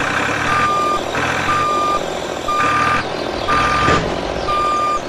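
Vehicle reversing alarm beeping about once a second, a single steady high tone, over a steady engine-like rumble.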